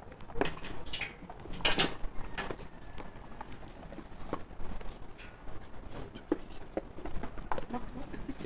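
Scattered light knocks and taps at an irregular pace, the sharpest a little under two seconds in.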